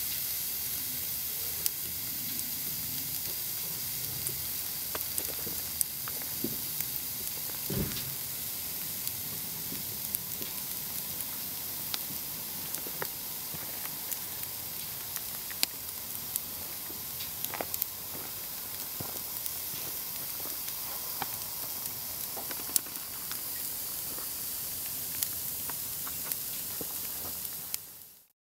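T-bone steak and corn on the cob sizzling on a grill grate: a steady hiss with scattered sharp pops and crackles, and a dull thump about eight seconds in. The sound fades out at the end.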